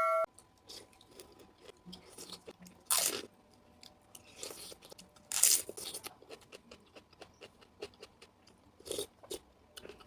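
Close-up biting and chewing of asinan Betawi, a salad of raw fruit and vegetables such as jicama, cucumber and carrot. There are irregular crisp crunches, the loudest about three and five and a half seconds in.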